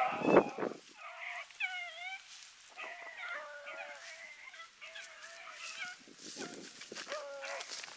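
Young rabbit hounds baying as they run a rabbit: several drawn-out, bending calls that overlap and repeat, heard at a distance. There is a loud thump just after the start and some brushy rustling later on.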